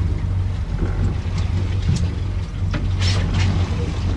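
Steady low hum of a small fishing boat at sea, with a few short sharp knocks in the second half.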